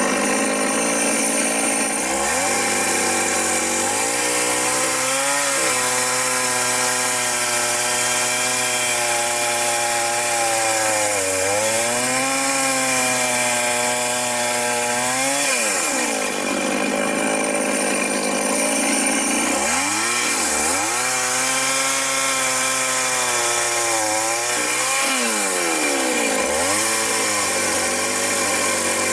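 Chainsaw engine running hard while cutting wood, its pitch sagging and swinging back up again and again as the chain bites and frees.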